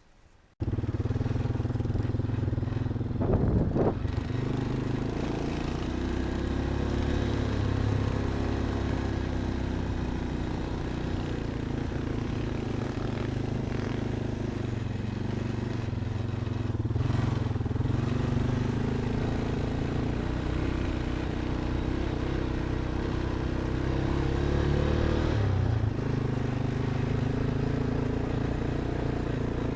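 Off-road vehicle's engine running steadily while driving, its pitch shifting slowly, with a single knock about three and a half seconds in.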